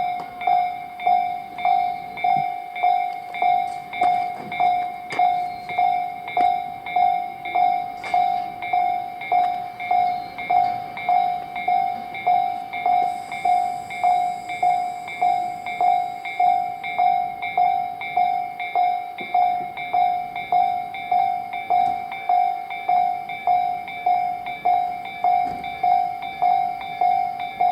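Japanese railway level-crossing warning bell ringing without pause, an even electronic clang at about one and a half strikes a second. A train runs over the crossing underneath it, with a thin high whine for a few seconds about halfway through.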